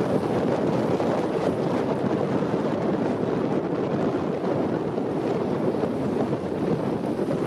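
Steady wind buffeting the microphone, with small waves lapping on a pebble shore.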